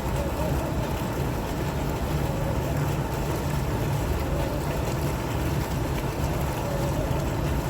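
Fountain water splashing and flowing steadily, with a full, low rush.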